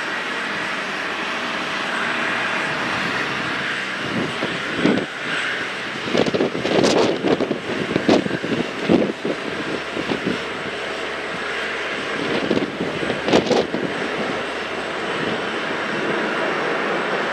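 Boeing 777-200LR's GE90 turbofan engines running as the airliner is pushed back for engine start: a steady jet roar, with a run of irregular louder bursts in the middle.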